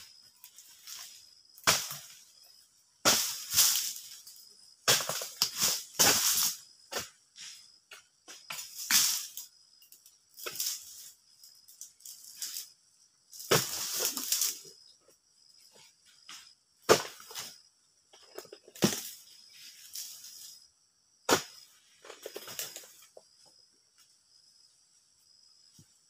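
Irregular rustling and crashing of oil palm fronds, with several sharp knocks, as a palm is worked with a long-poled harvesting tool. A steady high insect buzz runs underneath.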